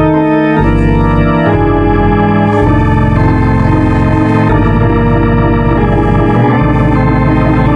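Organ music playing held chords over a bass line, the chord changing every second or two.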